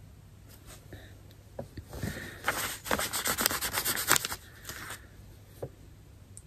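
A quick run of rubbing and scraping strokes close to the microphone, from about two to five seconds in, with a few lighter scrapes around it.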